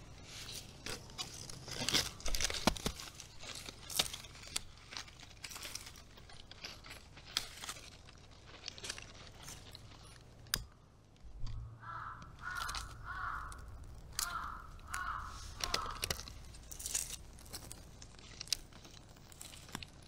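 Irregular crackles and snaps of dry material close by. About twelve seconds in, a crow caws six times in two groups of three.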